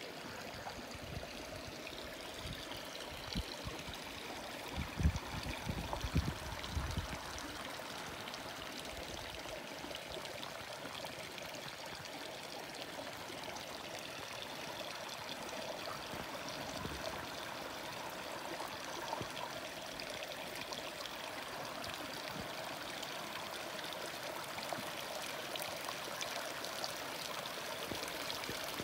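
Small shallow creek trickling and babbling over rocks, a steady rush of running water. A few low thumps come between about three and seven seconds in.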